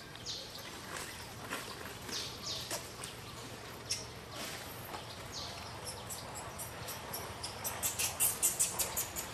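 Short high-pitched animal chirps that slide down in pitch, a second or two apart, then a louder fast run of sharp clicking chirps, about eight a second, near the end.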